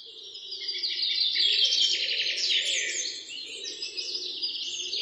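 Many small birds chirping and twittering at once, a dense overlapping chorus that builds up over the first second, with a fainter lower murmur underneath.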